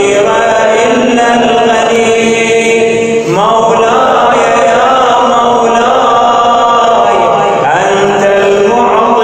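A man chanting an Arabic devotional supplication in a slow recitation on long, wavering notes; a short break about three seconds in, then the next line begins on a rising phrase.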